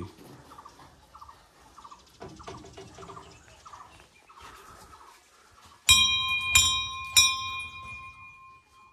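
Hindu temple bell struck three times in quick succession about six seconds in. Each strike rings on with a clear, steady high tone that slowly fades.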